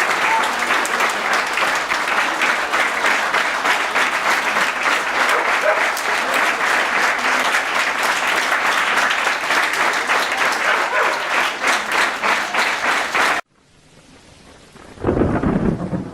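Crowd applauding steadily, a dense mass of clapping that cuts off suddenly about three seconds before the end, followed by a brief low rumble.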